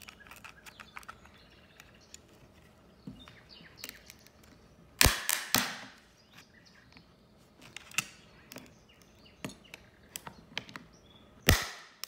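Hard clear plastic graded-card slab being pried apart with a flathead screwdriver: small plastic creaks and ticks, with two sharp cracks close together about five seconds in and another loud crack near the end as the case splits.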